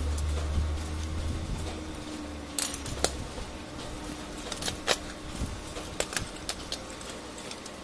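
Clicks and taps of plastic and metal parts as a laser-printer fuser assembly and its fuser film sleeve are handled and set down on a tabletop, about eight sharp knocks from a couple of seconds in. A low hum fades out in the first couple of seconds.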